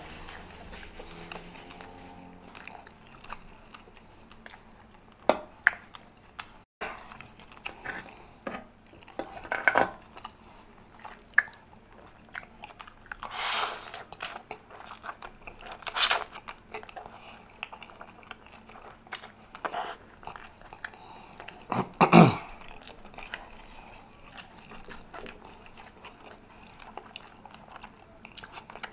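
Close-miked mouth sounds of a man eating rotisserie chicken and spaghetti: wet chewing with sharp lip smacks and clicks, and a long slurp of noodles about halfway through.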